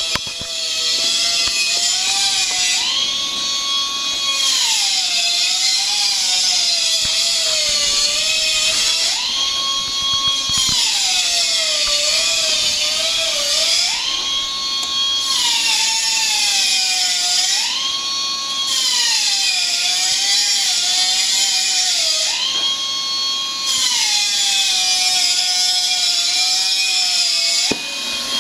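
A pneumatic heat press's pressure system running while the press is held closed under pressure: a loud whine that wavers, steps up to a higher held note every few seconds and slides back down, over a steady hiss.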